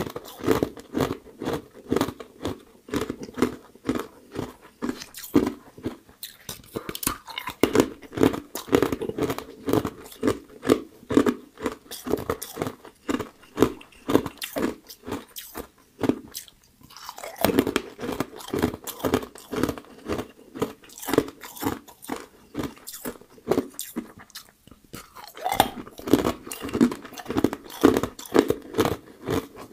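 Close-up crunching of a person biting and chewing hard frozen ice, rapid crisp crunches one after another. There is a brief pause a little past halfway.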